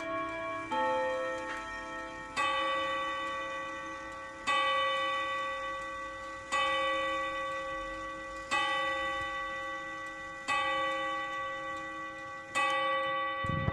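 Junghans antique three-train chiming wall clock: its chime melody finishes in the first couple of seconds, then it strikes the hour with six single ringing strikes about two seconds apart, each left to ring out.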